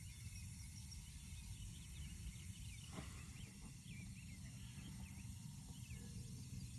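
Faint small-bird chirps and twitters scattered throughout, over a low steady rumble, with one faint click about three seconds in.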